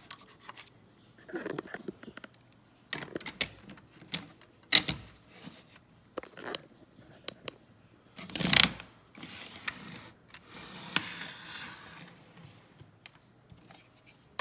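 Clicks and knocks of a heavy HO-scale model locomotive being handled and set onto model railway track, with one louder thump a little past halfway and a soft rustle after it.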